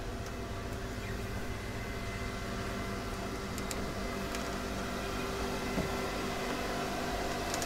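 Steady machinery hum from a motor yacht's engine room, with several fixed tones in it, growing slightly louder as the microphone goes down into the space. A few faint clicks and a soft knock come through over it.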